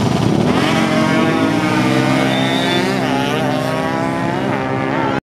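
A drag-racing vehicle's engine revving hard as it accelerates down the strip, its pitch climbing steeply, dropping briefly about three seconds in at a gear change, then climbing again.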